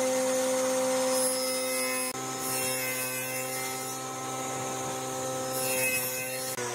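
An electric power-tool motor running at a steady pitch with a humming whine, winding down near the end.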